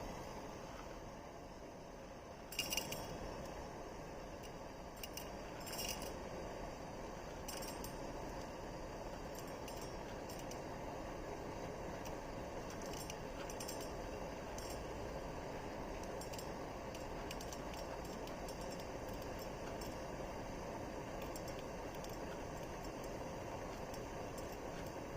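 A few light clinks of metal and glass utensils being handled in the first six seconds, over a campfire's steady low rushing with faint scattered crackles.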